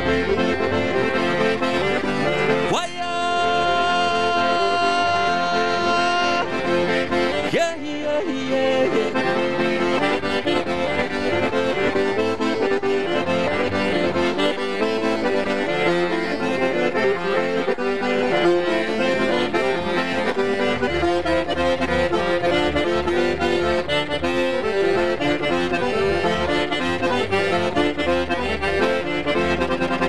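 Chromatic button accordion playing a fast tune of quick running notes, with one chord held for a few seconds near the start.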